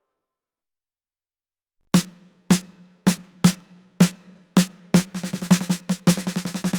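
Background music: about two seconds of silence, then a drum comes in with single hits about twice a second, speeding up into a fast snare roll about five seconds in.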